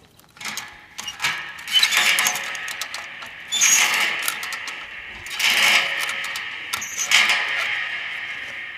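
Repeated bursts of metal scraping and clanking, each leaving a ringing tone that fades slowly: a propane tank being shifted and dragged into place.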